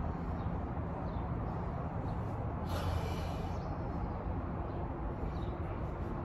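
A man lifting dumbbells lets out a short, forceful breath through the nose a little under three seconds in, over a steady low outdoor rumble.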